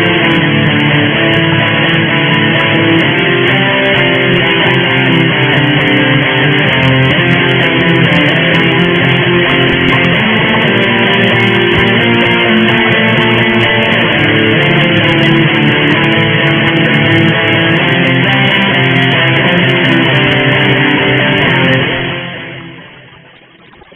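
Guitar music at a steady level, fading out over the last two seconds or so.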